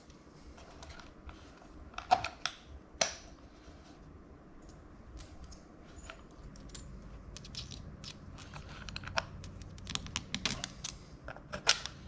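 Stainless steel bolts, washers and nuts clinking and clicking as they are handled and set onto a PVC mounting board: irregular small metallic clicks, two sharper ones early and a quicker run of them near the end.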